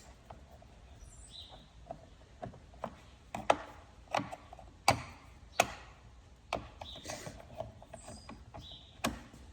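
Clicks and knocks of the top cover being worked off a Stihl MS 162 chainsaw, with four sharp knocks under a second apart in the middle and a few short squeaks.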